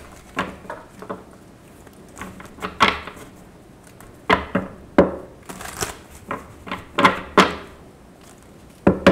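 A tarot deck being shuffled and handled by hand: irregular clicks, snaps and short rustles of the cards.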